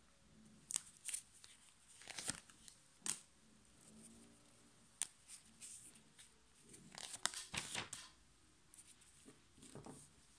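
Tarot cards being drawn from the deck and laid down on a cloth-covered table: a series of faint card slides, rustles and light snaps of card stock, several of them close together near the end.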